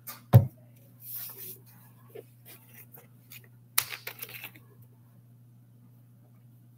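Thin plastic water bottle being handled: a thump just after the start, light rustling, then a sharp crackle of the plastic about four seconds in.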